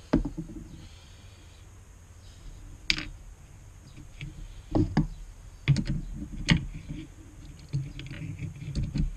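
Irregular knocks and clicks of a synthetic rifle stock and small parts being handled and set down on a plywood workbench. The sharpest come about three, five and six and a half seconds in.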